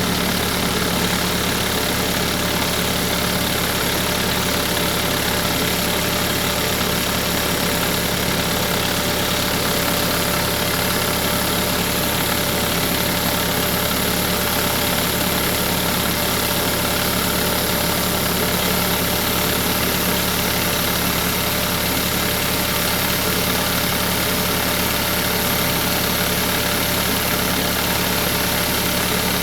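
Subaru Sambar kei truck engine idling steadily, with the air conditioner running as during a refrigerant recharge.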